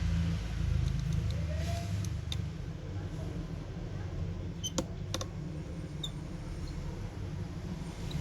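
A few small sharp clicks and ticks of a small screwdriver on the metal bracket and frame of an iPhone 6, as a screw is put back over the battery connector, with a cluster of clicks about halfway through. A steady low hum runs underneath.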